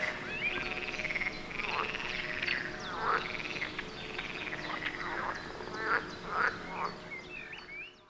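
Frogs calling in a chorus of repeated pulsing croaks, with short high chirps over them. The sound fades out near the end.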